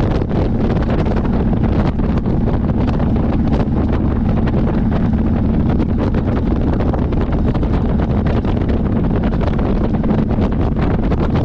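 Motorcycle riding at cruising speed: wind buffeting hard on the microphone over the steady drone of the engine.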